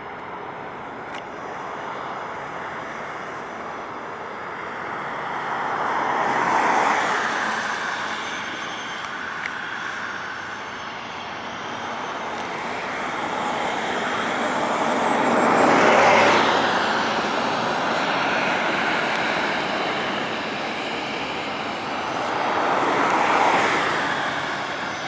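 Dassault Falcon 7X's three turbofan engines running at taxi power, a steady jet rush with a faint high whine. Road traffic swells past and fades three times over the top of it.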